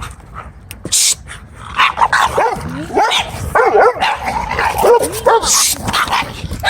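Dogs barking and whining, with a run of wavering, rising and falling yelps and whines through the middle, and a short noisy burst about a second in.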